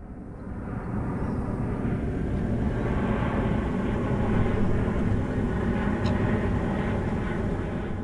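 Small boat's outboard motor running steadily with the boat under way, building up over the first couple of seconds.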